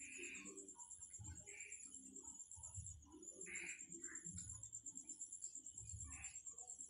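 Near silence: faint room tone with a steady high-pitched whine and scattered faint, indistinct background sounds.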